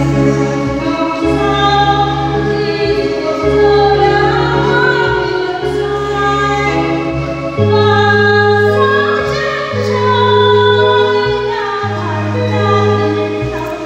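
Church choir singing a Vietnamese Catholic hymn in parts, over accompaniment with held chords and a bass line that changes every second or two.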